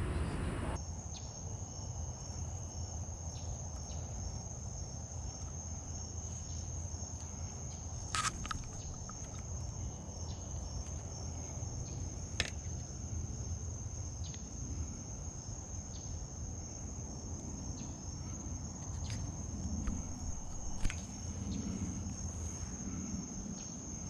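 Insects trilling without a break on one high pitch, with a few short sharp clicks and a low rumble underneath.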